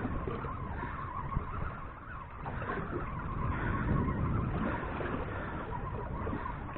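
Wind buffeting the microphone in a continuous, uneven rumble, with a faint steady whine underneath.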